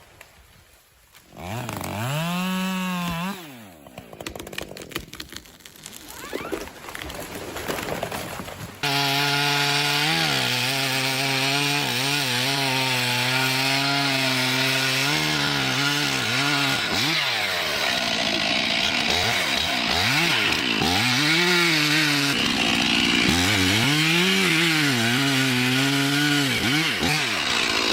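Chainsaw revving briefly about two seconds in, then, after a quieter stretch, starting abruptly at full throttle about nine seconds in and running loud and continuously. Its pitch sags and recovers again and again as the chain cuts into wood.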